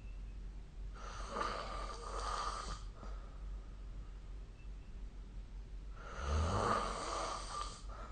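A person snoring: two snores about five seconds apart, each lasting about two seconds, with the second louder and starting with a low rattle.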